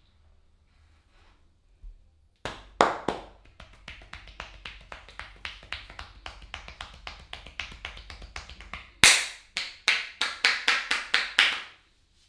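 A barber's hands tapping and slapping rhythmically on a head during a head massage. The sharp strikes start about two seconds in at several a second, turn into a run of louder slaps near the end, and stop abruptly.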